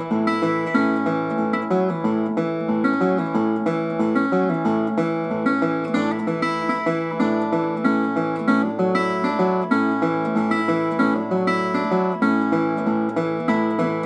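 Metal-bodied resonator guitar fingerpicked, playing a country-blues melody over an even pulse of plucked notes.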